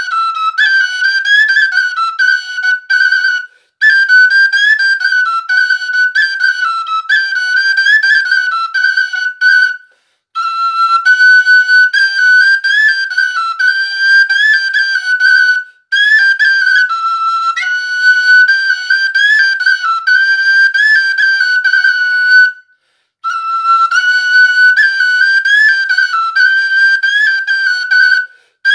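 Frula in D, a wooden Serbian end-blown duct flute, playing a solo folk melody with quick ornamented grace notes, in phrases of a few seconds separated by short pauses.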